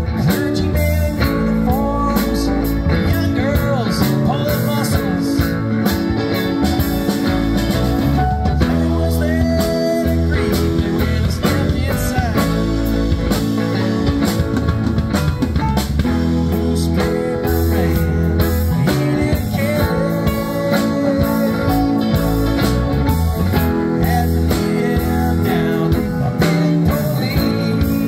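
Live rock band playing: two electric guitars, electric bass, drum kit and keyboard over a steady beat, with sliding lead lines on top.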